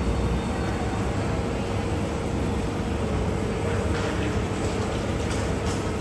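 Airliner jet engines running, a steady low rumble with a steady hum held through it.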